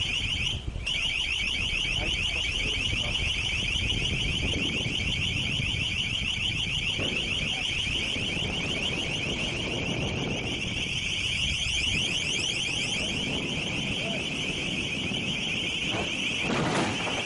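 Long-range acoustic device (LRAD) sounding a loud, high-pitched beeping tone in rapid, even pulses that hardly break. It is an acoustic deterrent aimed at the ship's crew, meant to annoy and disable them.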